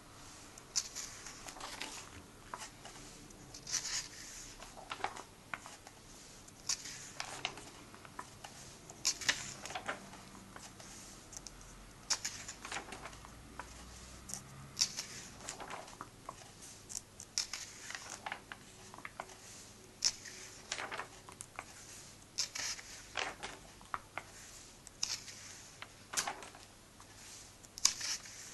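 Paper comic book pages turned and pressed flat by hand: a paper swish or rustle every second or two, some sharper and crisper than others.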